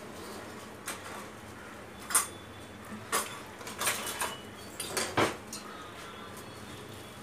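Kitchen utensils and steel pots clinking and clattering in a scatter of sharp knocks. The loudest knocks come about two seconds in and around five seconds.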